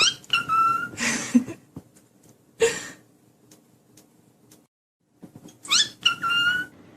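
Parrot calling: a rising whistle sliding into a held note, twice, about five and a half seconds apart, with short harsh squawks between them.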